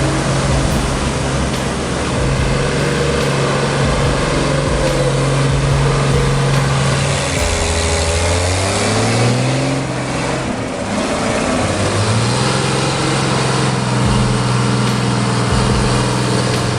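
Heavy machine's engine running steadily. About seven seconds in it drops in pitch, then it revs back up a few seconds later.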